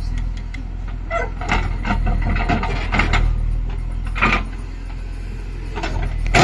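Heavy diesel machinery, a backhoe loader or the tractors it is loading, running steadily, with short irregular clanks and scrapes over the engine note.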